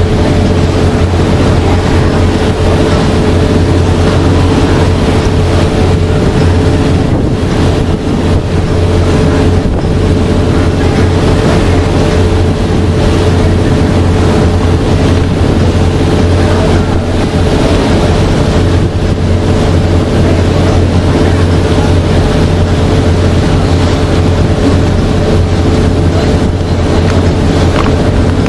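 Boat engine running steadily under way, a constant low hum, with wind buffeting the microphone.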